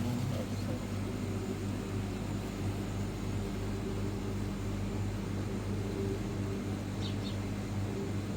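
Steady low mechanical hum of a running motor, even in level throughout, with a couple of faint ticks near the end.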